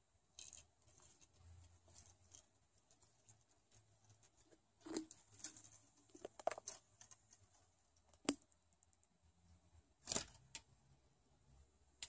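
Small metal bell and plastic hanging toys on a budgie's play stand jingling and clicking as the bird climbs among them, with a few sharper clinks about halfway through and near the end.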